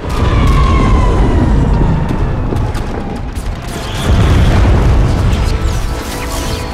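Film battle sound design: deep booming explosions and rumble starting at once, with a second heavy surge about four seconds in, and music underneath.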